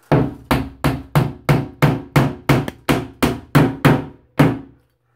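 Claw hammer driving a nail into a plastic wire-shelf wall clip on drywall: more than a dozen sharp blows in quick succession, about three a second, the last one slightly apart near the end.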